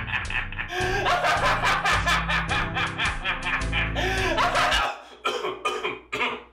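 A man laughing hard in quick, rapid pulses over background music. The music cuts off about five seconds in, leaving a few short breaths and coughs as the laughter dies away.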